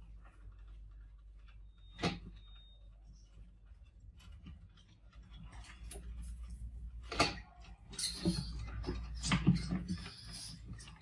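Many mice scrabbling and climbing on the wire mesh and glass of a crowded live mouse trap: scattered clicks and rattles, a sharp knock about two seconds in and another about seven seconds in, then a busy stretch of scratching and rattling near the end.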